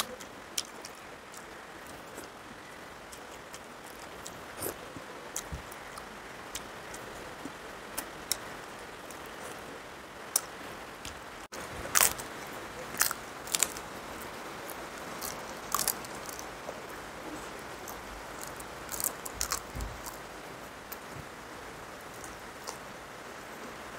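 Crisp fried papad crunching as it is bitten and chewed, in sharp crackles with a loud cluster about halfway through and another a little later.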